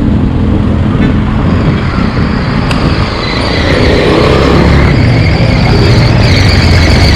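Street traffic heard from a moving e-bike: the engines of nearby cars, a jeepney and motorcycle tricycles running in slow traffic, a steady low rumble. A faint high whine joins about halfway through.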